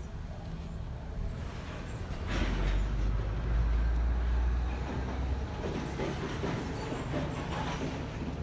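A motor vehicle passing over steady street background noise. Its low rumble comes up about two seconds in, is loudest around four seconds, and fades after about five seconds.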